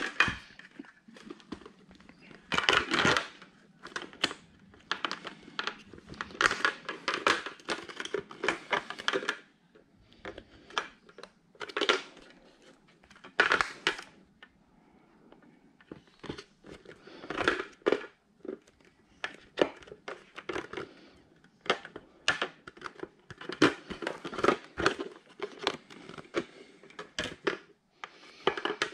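Hard plastic handling noises: irregular clicks, scrapes and crinkling as a motorcycle helmet visor is handled and worked onto the helmet's side pivot plates.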